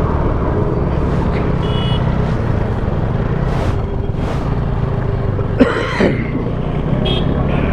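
Motorcycle engine running steadily at cruising speed under wind and road rush, with a couple of swishes of traffic going past and a brief loud rush about five and a half seconds in.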